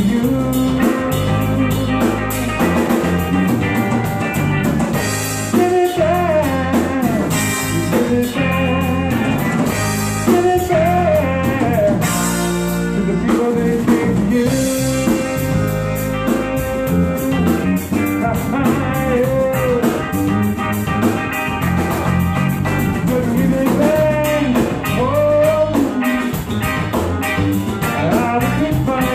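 Live band music: electric guitar, bass and drum kit playing a blues-rock instrumental passage, with bending guitar lead lines.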